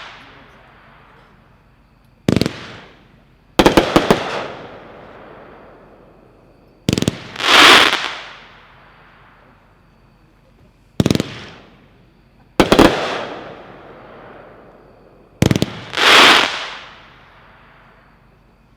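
A multi-shot consumer fireworks fan cake (Heavyweight Backyard Buzzsaw) firing in volleys. Sharp launch cracks every two to four seconds are each followed by a hissing, crackling effect that swells and then fades away.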